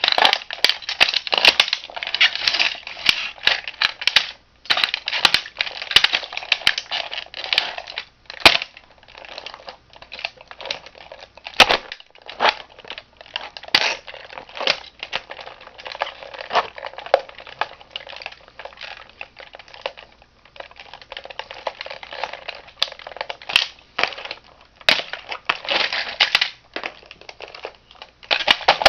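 Toy car being crushed underfoot by a shoe: plastic breaking and crunching in a long run of crackles and sharp snaps.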